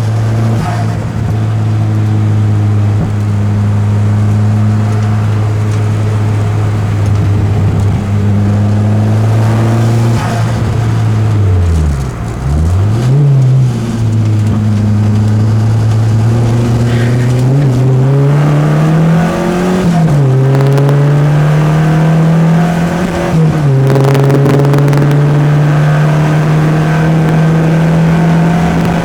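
Peugeot 205's four-cylinder engine working hard on a race circuit. It holds steady revs for long stretches. About twelve seconds in the revs drop sharply and pick up again, then climb in several steps in the second half as it accelerates through the gears.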